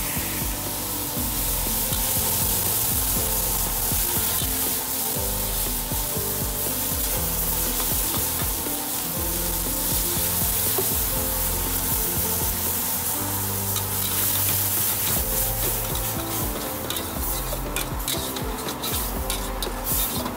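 A metal spatula scrapes and stirs meat and chillies in an aluminium wok over a gas flame, with steady sizzling of frying. About halfway through, water is poured into the hot pan. Near the end the spatula clatters in quick clicks against the wok.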